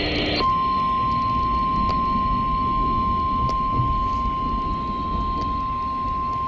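Emergency Alert System attention signal: a single steady, unbroken warning tone (the National Weather Service's 1050 Hz alert tone) that starts about half a second in, right after a harsh burst of digital alert-header data cuts off abruptly. A steady background hiss and rumble runs under it.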